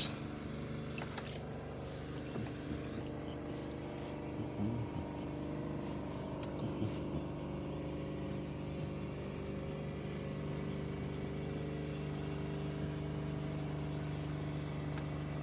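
Air compressor running steadily with an even mechanical drone, inflating lift bags under a sunken sailboat; a few light knocks in the first half.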